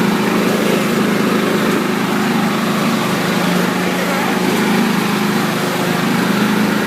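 Riding lawn mower's engine running steadily under way while the mower is driven fast, a constant low hum with a faint higher tone over it.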